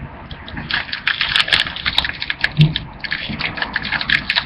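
Crinkling and rustling of a trading-card pack's foil wrapper being handled, a dense crackle of small clicks that swells about a second in.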